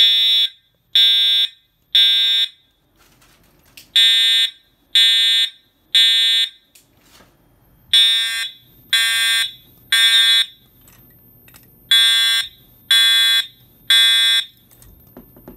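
Edwards 757-7A-T Integrity fire alarm horn sounding in the temporal Code-3 pattern: three short, buzzy high-pitched blasts about a second apart, a pause, then the next three, four rounds in all. It is loud despite being set to low volume.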